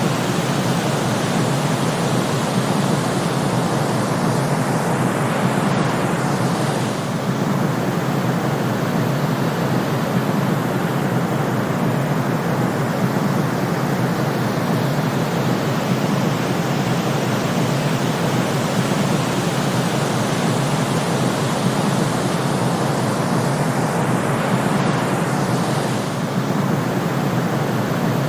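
Steady white-noise sleep track: an even, continuous rushing hiss weighted toward the low and middle range. It dips slightly about six seconds in and again near the end, as the loop repeats.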